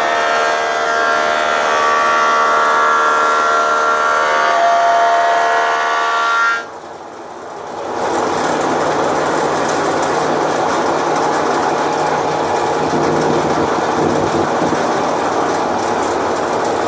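Foley Belsaw planer-moulder, driven by a 5 HP single-phase electric motor, running while a cherry board is fed through it. The first part is a steady whine of several tones. After a brief drop in level about six and a half seconds in, it becomes a steady rougher running noise. The machine is shaking and rattling, which the owner puts down to belts that probably need tightening.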